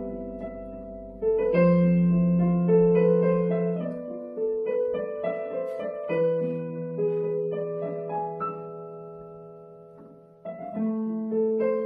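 Digital piano played slowly in sustained chords, each struck and left to ring and fade. Fresh chords come in about a second in and again about six seconds in, and the sound dies away before a new phrase starts near the end.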